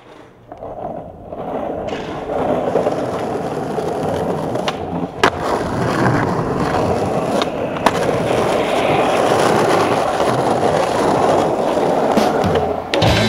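Skateboard wheels rolling steadily over concrete, the sound growing over the first couple of seconds. A few sharp cracks of the board's tail popping and landing from a flip trick are heard, the loudest about five and eight seconds in.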